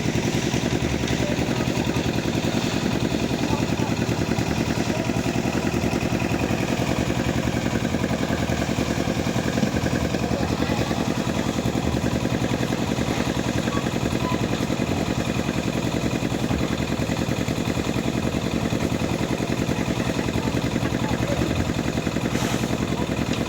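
Small engine running steadily at an even speed, with a fast regular pulse.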